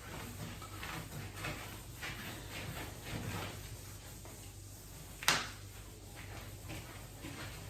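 Cloth wiping over furniture in soft short strokes, about two a second, with one sharp knock about five seconds in.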